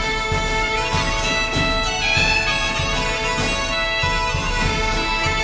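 Bagpipe music: a tune played over a steady held drone, with a regular drum beat underneath.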